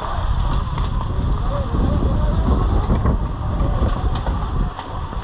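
Steady, uneven rumble and rattle of a Sur Ron electric dirt bike riding over rough, freshly cut trail, with wind buffeting the camera mic.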